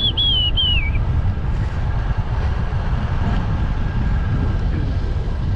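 Wind buffeting the microphone of a camera on a moving road bike: a loud, steady low rumble. A short high whistling call of three rising-and-falling notes sounds in the first second.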